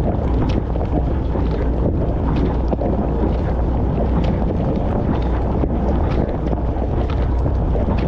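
Dishwasher wash cycle heard from inside the tub: water jets from the spray arms hissing and pelting against the dishes, rack and camera, with many small splashes and ticks over a steady low hum.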